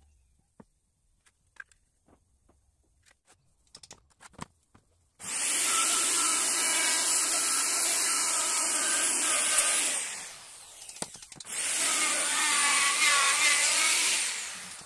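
A few light taps, then an electric router starts about five seconds in and runs at high speed with a high whine, cutting into curved teak pieces. It eases off briefly around ten seconds, then cuts again until it fades near the end.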